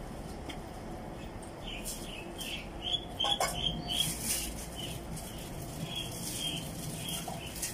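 Small birds chirping in a quick run of short, high chirps, while a person chews food close to the microphone.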